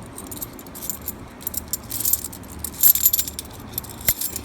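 Half dollar coins clinking against each other as they are slid through by hand, a rapid run of metallic clicks that is loudest about three seconds in. A steady low hum lies underneath.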